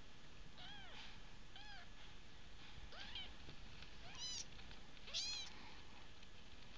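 Very young Bengal kitten mewing: five short, high-pitched mews about a second apart, each rising and falling in pitch, the last two loudest.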